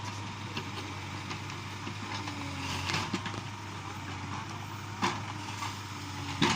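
Backhoe loader's diesel engine running steadily, with a few short sharp knocks in the second half.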